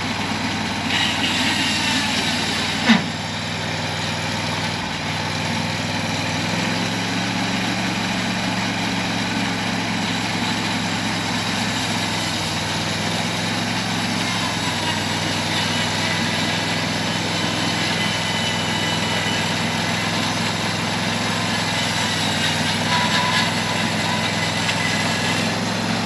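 Engine running steadily at idle, its low hum stepping up slightly in pitch about six and a half seconds in, with one sharp click about three seconds in.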